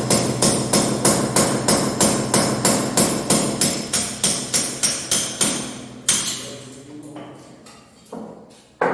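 Hammer blows in a fast, even rhythm, about four strikes a second, that stop a little past the middle; one more knock and two near the end follow. A steady low hum runs underneath.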